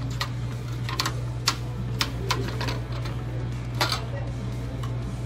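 Irregular sharp clicks and taps against a metal platter as fingers pick the last scraps of food off it, about eight in five seconds, over a steady low hum.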